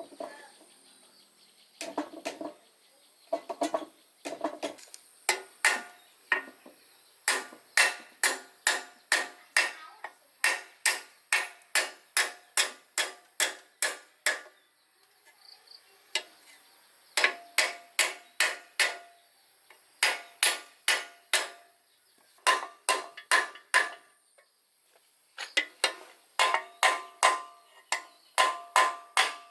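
Hammer blows on metal, about two to three strikes a second in runs broken by short pauses, each blow leaving a brief metallic ring.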